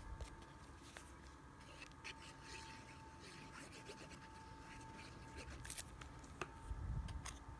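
Faint scratching and rubbing as the tip of a liquid glue bottle is drawn over a cardstock circle and the card is handled, with a few light ticks.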